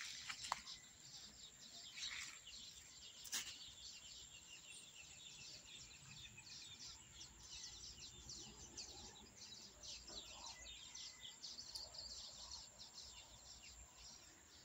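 Faint outdoor ambience of birds chirping, many quick high chirps running on together, with a sharp click about three and a half seconds in.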